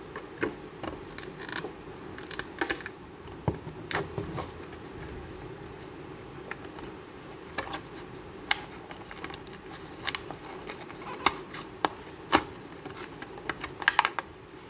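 Packaging of a Barbie Chelsea doll being opened by hand: scattered sharp clicks, snips and crinkles that come in clusters, busiest near the end, over a steady low hum.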